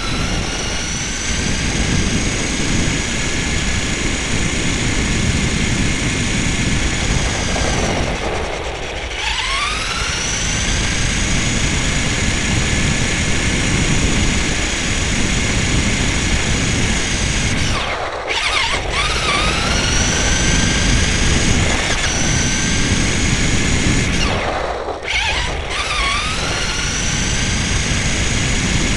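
RC car's motor and gears whining at speed over a rough rumble from the wheels on asphalt, heard from a camera mounted on the car itself. Three times the whine drops away briefly and then rises in pitch as the car speeds back up.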